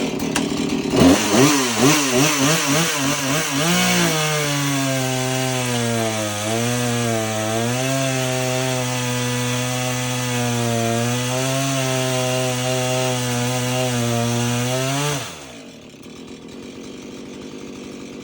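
Gas chainsaw with an unsharpened, badly worn chain making a test cut in wood. The engine revs for about four seconds, then drops in pitch and runs steadily under load as the chain bites. About fifteen seconds in the throttle is released and the sound drops off sharply.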